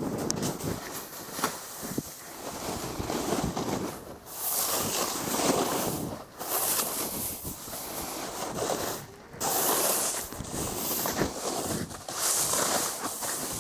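Snowboard riding down a snowy slope: the board's edge scraping and hissing through the snow in long swells that drop away briefly between turns, with wind rushing over the microphone.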